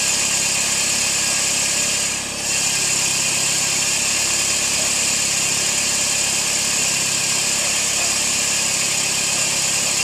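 A 2006 Scion xA's 1.5-litre four-cylinder engine idling steadily, its misfire repaired. It softens briefly about two seconds in.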